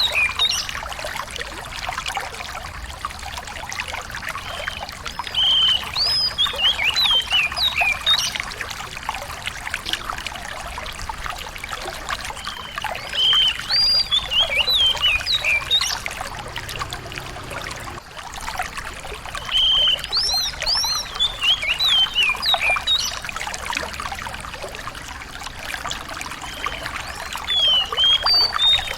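A small songbird repeating the same short phrase of quick, downward-flicking chirps about every seven seconds, four times, over a steady trickle of running water.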